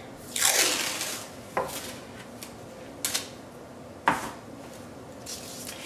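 Green painter's tape pulled off its roll with a short ripping sound about half a second in, followed by a few light knocks and taps as the tape and roll are handled, one about four seconds in as the roll is set down on the table.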